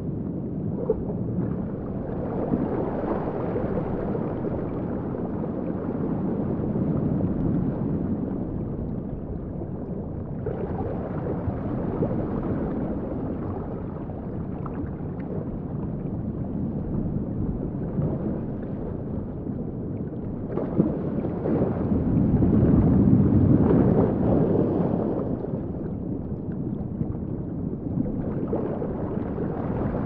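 Sound-designed underwater ambience: a low, muffled wash of water with no distinct events. It slowly swells and eases, and is loudest about three-quarters of the way through.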